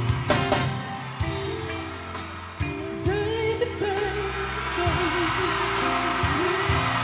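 Live performance of a slow ballad: long held chords, with a male voice singing long, bending notes from about three seconds in.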